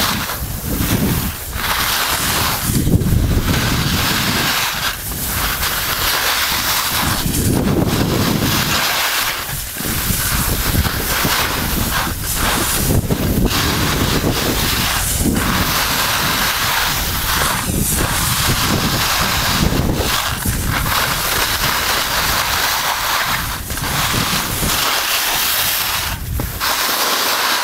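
Wind buffeting the microphone and skis hissing and scraping over packed snow during a downhill run, swelling and dropping every couple of seconds.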